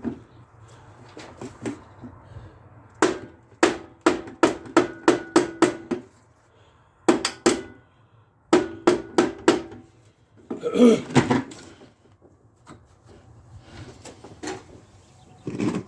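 Hammer blows on metal, in quick runs of about three strikes a second with a faint ring after some, and a short scraping rattle in the middle.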